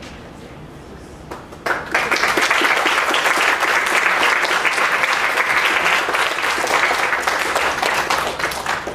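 Audience applauding, the clapping starting suddenly about two seconds in and dying down near the end.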